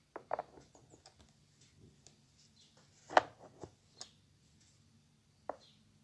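Scattered small taps and knocks from painting at a wooden easel, paint being dabbed onto the board: two near the start, a sharp knock about three seconds in that is the loudest, then a few lighter taps.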